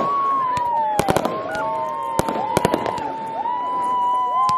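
Aerial fireworks going off: sharp bangs and crackles at irregular intervals, over a steady high whistling tone with shorter whistles that arch and bend down.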